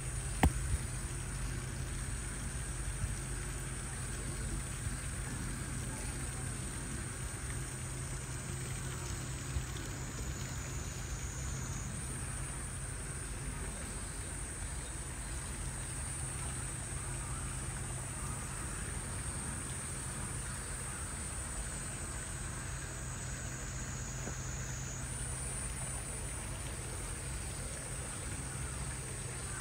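Steady outdoor background: a continuous high, thin insect buzz that shifts pitch a couple of times, over a low steady hum, with one sharp click about half a second in.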